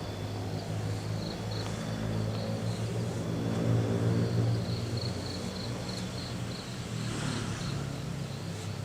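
A low, steady engine hum that swells about four seconds in and then eases off, with crickets chirping in a fast, even pulse above it.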